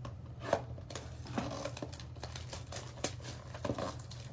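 A cardboard trading-card blaster box being handled and opened: scattered light taps and clicks of cardboard and packs, over a steady low hum.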